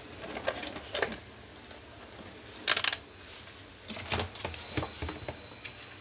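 Box fan parts being handled: scattered small clicks and knocks of plastic and metal, with one sharp metallic clatter about three seconds in.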